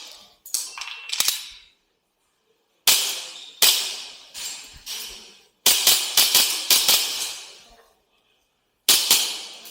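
WE G17 gas blowback airsoft pistol being fired in quick strings: sharp cracks as the slide cycles, some spaced under a second apart and a fast run of about six near the middle, with short pauses between strings.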